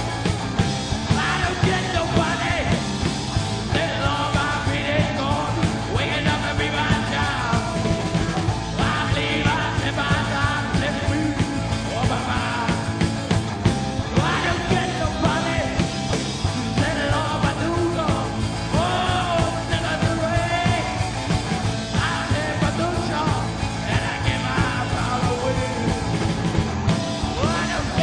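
A rock band playing a song: drums, bass and guitar, with a lead voice singing over them.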